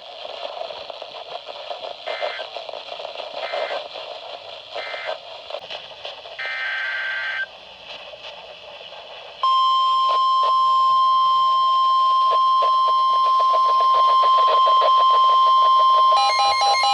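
Weather-radio alert signalling over hissing radio static. Three short digital data bursts (the SAME end-of-message code) come about a second and a half apart, then a second-long data burst. About halfway through, the loud steady 1050 Hz NOAA Weather Radio warning alarm tone starts and holds, with rapid warbling data chirps over it near the end.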